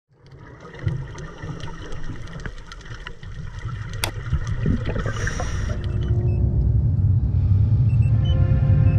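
Cinematic intro soundtrack: a deep low rumble that swells steadily, with scattered clicks, a sharp crack about four seconds in and a brief hiss a second later. From about six seconds in, sustained synth tones join the rumble.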